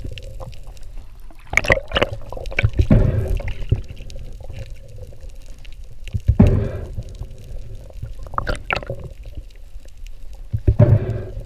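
Water noise around an underwater camera: irregular bursts of rushing and bubbling water, heaviest in the lows, with a few sharp clicks.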